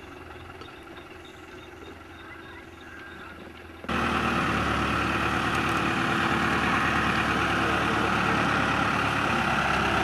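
Escorts Powertrac 4455 tractor's diesel engine running steadily, faint at first, then abruptly much louder about four seconds in.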